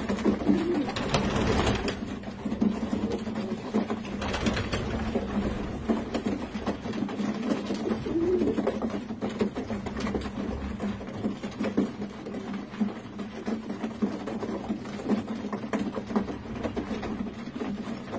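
Racing pigeons of the Scherens-Vangramberen strain cooing while they peck grain from a feeder, with a steady run of small rapid clicks under the low cooing.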